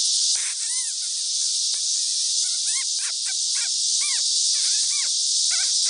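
Doberman puppies whining in many short, high, rising-and-falling cries in quick succession, starting about half a second in, over a steady high insect drone.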